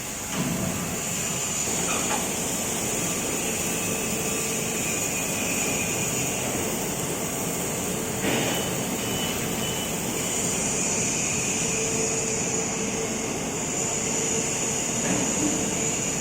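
Steady mechanical noise of industrial machinery with a constant high whine, and a few light knocks along the way.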